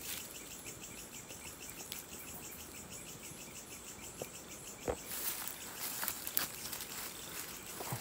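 Night insects, crickets or the like, trilling in a steady, regular pulse. From about five seconds in, a few short rustles and knocks break in.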